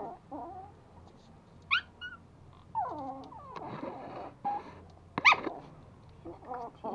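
Toy Pomeranian puppies play-fighting, letting out short high yelps and whines, with a sharp squeal about two seconds in and a louder one past five seconds.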